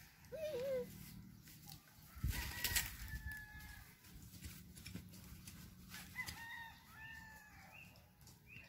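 Roosters crowing in the background, several drawn-out crows, most of them in the last few seconds. About two seconds in comes a brief, louder scraping rustle.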